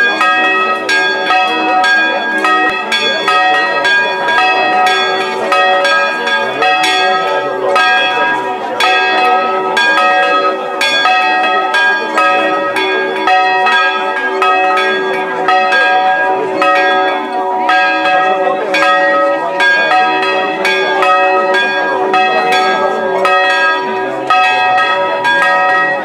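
Church bells in a stone bell gable ringing a continuous peal, about two strikes a second, their tones ringing on between strikes.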